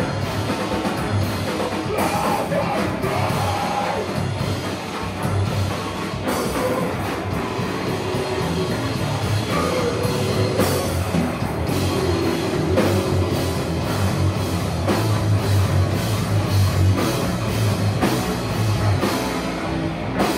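Live heavy metal band playing loud, with drum kit hits and singing over the instruments.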